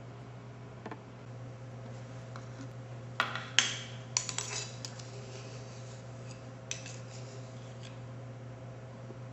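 Laboratory glassware clinking and tapping against glass: a cluster of sharp clinks about three to four and a half seconds in and a single one near the end, over a steady low hum.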